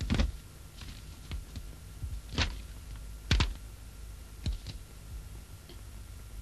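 A few scattered knocks and thuds at uneven intervals, the sharpest about two and a half and three and a half seconds in, over a low steady hum.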